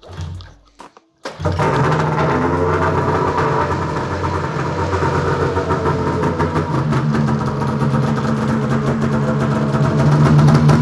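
Two-stroke snowmobile engine pull-started by its recoil rope, catching about a second in and then running loud and steady.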